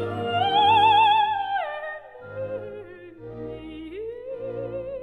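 Operatic soprano with orchestra: the voice glides up to a high note, holds it with a wide vibrato, then slides down, over sustained orchestral chords; near the end a new phrase rises and is held.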